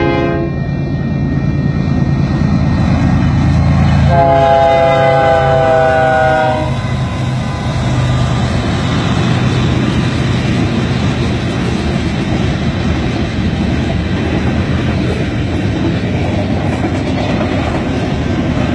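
Union Pacific freight train passing: the lead diesel locomotives' air horn sounds briefly at the start and again in a longer blast about four seconds in, its chord dropping slightly in pitch as they go by. The locomotives' engines drone past, followed by the steady rumble and clickety-clack of freight cars rolling on the rails.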